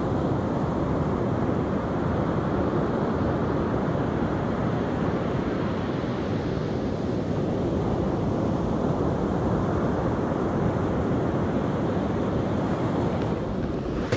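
Ocean surf washing steadily onto a sandy beach, mixed with wind noise on the microphone.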